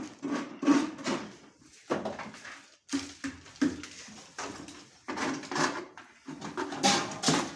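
Irregular clattering and scraping of hand tools and materials as plasterers work on a POP ceiling, with a string of short knocks spread through.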